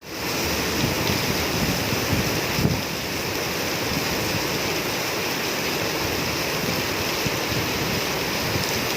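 Steady rain falling, an even hiss, with low wind rumble on the microphone.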